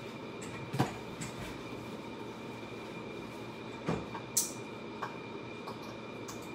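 Steady machine-like hum with a faint high whine, broken by a few sharp knocks and one short scraping rustle as a leather saddle is handled on a wooden workbench; the loudest knock comes about a second in.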